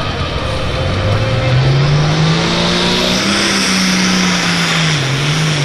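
International Harvester pulling tractor's diesel engine revving up under load as it starts a pull, its pitch climbing steadily for a couple of seconds and then holding high with a slight dip near the end.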